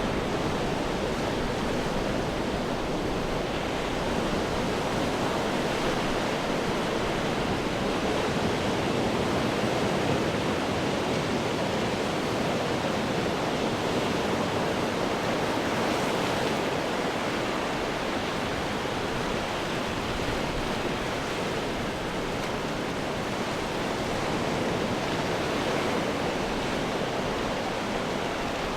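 Ocean waves breaking on rocks, a continuous even roar of surf and churning water with no distinct individual crashes.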